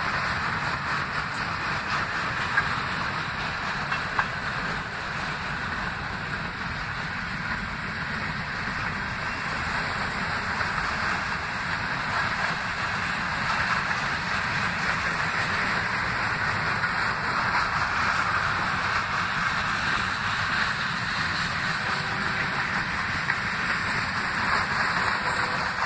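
Freight cars of a passing Ferromex train rolling by: a steady rumble and rushing noise of steel wheels on the rails, with two brief sharp clicks about three and four seconds in.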